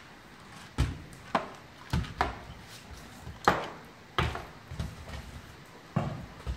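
A horse in its stall pulling at a hay net on the stall wall, making a series of irregular knocks and thumps, about one or two a second.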